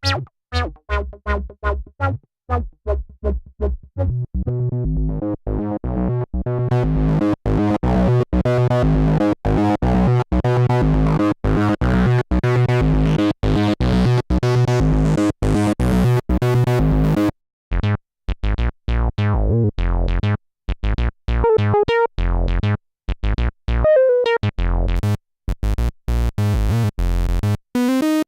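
Korg Monologue monophonic analogue synth playing a fast repeating pattern of short bass notes, its filter opening so the tone grows steadily brighter over the first half. It stops briefly just past the middle, then the pattern resumes with several notes sliding up in pitch.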